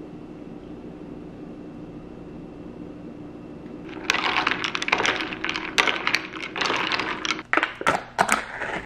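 Faint steady room hum, then about four seconds in a loud run of irregular crinkling and crackling as the foil lid is peeled off a plastic yogurt cup, stopping near the end.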